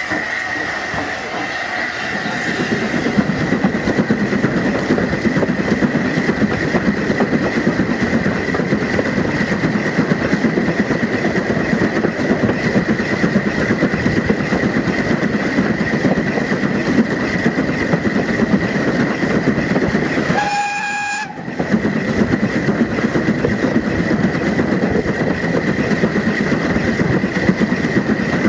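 Steam train on the move, hauled by Maunsell Q class 0-6-0 locomotive 30541 and heard from close by on board: a steady rush of wheel and rail noise with clickety-clack and a thin, steady high ring. The sound changes about two seconds in, and it breaks briefly about 21 seconds in.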